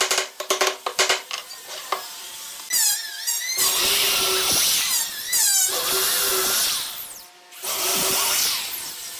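A few hammer taps on a wooden frame joint die away in the first two seconds; then a corded electric drill revs and bores into the pine frame corners in several runs of a second or two, with short pauses between.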